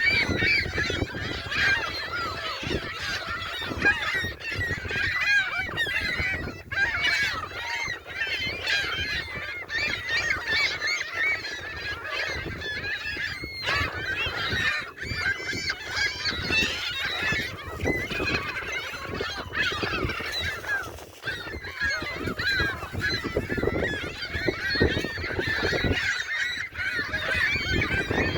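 A large flock of seagulls calling all at once while being fed, many cries overlapping in a constant clamour.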